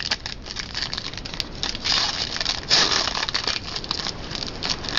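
Plastic-foil trading-card pack wrapper crinkling and crackling in the hands as it is worked at and pulled open, in irregular bursts.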